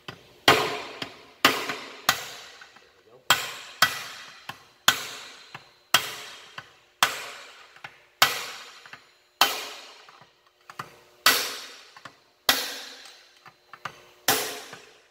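Hammer tapping a brass drift to drive a new roller bearing down into a Spicer 3053A transmission case, about two sharp metallic strikes a second with brief pauses, each ringing briefly. The tapping seats the bearing until its snap ring sits against the case.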